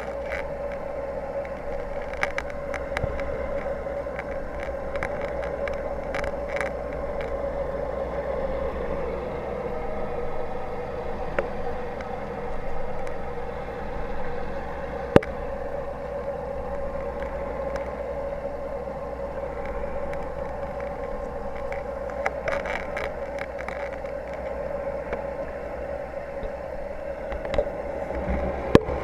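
Aquarium pump or filter humming steadily, picked up by a camera in the tank, with a few faint clicks.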